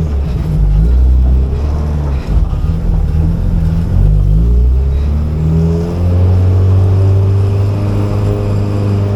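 Car engine running under load as the car is driven, its note rising and falling with a brief dip about two seconds in. It settles into a steadier note about six seconds in, then climbs in pitch near the end as the engine revs up.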